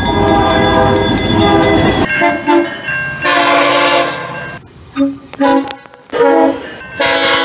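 Train air horns sounding chords of several steady notes: a long blast over the heavy rumble of a passing train that cuts off abruptly about two seconds in, then a series of short and long horn blasts.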